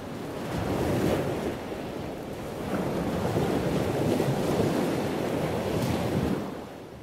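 Sea waves washing onto a beach: a steady rush of surf that swells twice, then fades out near the end.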